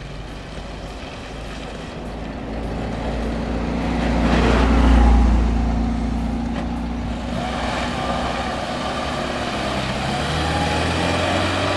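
Engine of a homemade open-top off-roader built on a UAZ-452 chassis, driving up and passing close by. The engine sound builds to its loudest about five seconds in, then carries on steadily as the vehicle turns.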